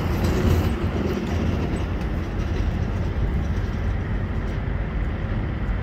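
Steady low rumble of truck engines and road traffic.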